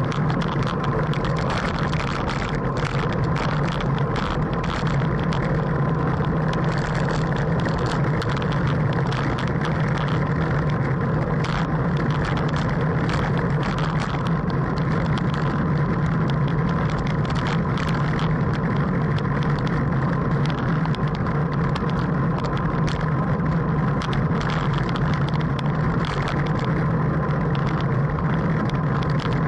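Steady wind rush and road noise on a bicycle-mounted camera's microphone while riding at about 17 mph, with scattered light ticks.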